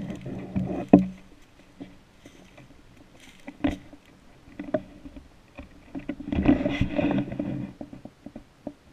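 Footsteps crunching and rustling through dry fallen leaves and brushing past twigs, in irregular bursts, loudest with a sharp crackle about a second in and a longer stretch of rustling around six to seven seconds in.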